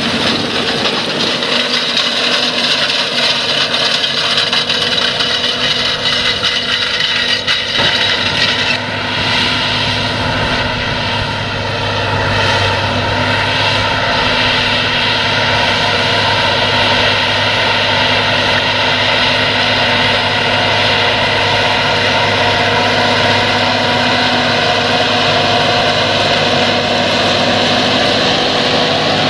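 John Deere 8345R tractor's diesel engine running steadily under load while pulling a disc cultivator through stubble, together with the noise of the discs working the soil.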